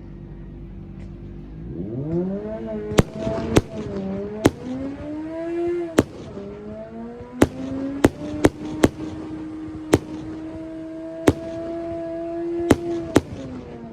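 Aerial fireworks going off in sharp, irregular bangs, about a dozen over the span. Under them is a long wavering, pitched tone that glides up in pitch about two seconds in and is then held steady.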